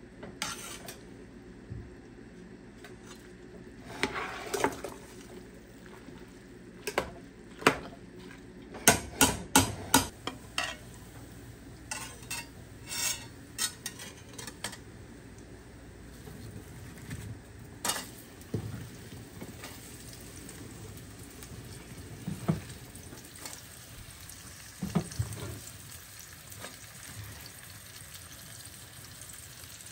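A utensil stirring food in a cooking pot, with sharp knocks against the pot, including a quick run of them about nine seconds in. Frying food sizzles faintly underneath.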